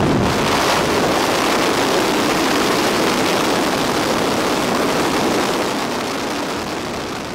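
Steady, loud rush of slipstream wind and turboprop engine noise from a PAC Cresco 750 at its open jump door in flight, the airflow blasting the microphone. It eases slightly near the end.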